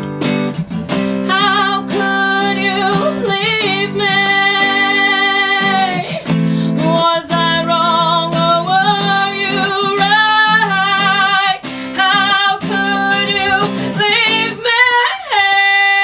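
Live performance of a ballad: strummed guitar with a singer holding long, wavering notes without words, phrase after phrase.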